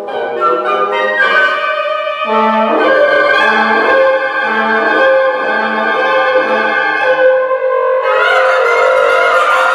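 Woodwind quintet of flute, oboe, clarinet, bassoon and horn playing contemporary chamber music: held chords over a low note repeated five times, about once a second. About eight seconds in, the upper voices turn brighter and busier.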